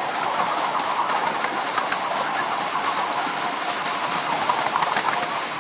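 A 7¼-inch gauge miniature steam locomotive and its ride-on passenger car running along the track: a steady hiss from the engine, with the wheels clicking over the rails.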